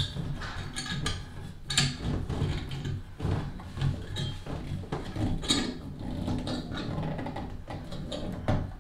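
A metal tub spout being turned by hand onto its threaded pipe adapter: scattered clicks and light scraping of handling, with a sharper click about 2 s in and another about 5.5 s in.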